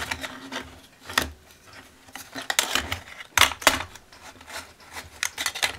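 Irregular rubbing and scraping handling sounds with scattered sharp clicks, the loudest a few seconds in.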